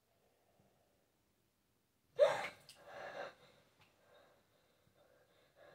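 A person's sudden sharp gasp about two seconds in, followed by a weaker breathy exhale.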